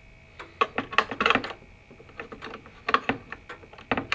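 Mid-1700s Samuel Bentley grandfather clock ticking, with three clusters of sharper clicks and rattles from handling of the clock case.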